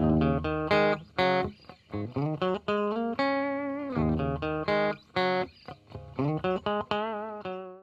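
Intro music led by a guitar playing a melody with bending, sliding notes over low sustained tones. It cuts off suddenly.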